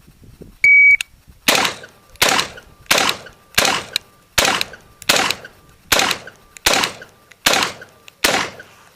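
Electronic shot timer's start beep, then ten rifle shots fired at a steady pace, about one every three-quarters of a second, each with a short echo: a ten-round string of a timed carbine drill.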